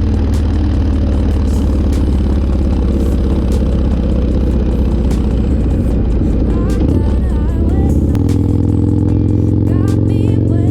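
Motorcycle engine running steadily at cruising speed, with the engine note changing about eight seconds in as the bike shifts. Music plays faintly over it near the end.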